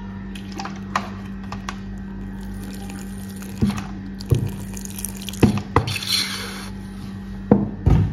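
Liquid dripping and splashing into an aluminium pot onto heaped dry spice powders: several separate splashes, with a brief pouring hiss about six seconds in. A steady low hum runs underneath.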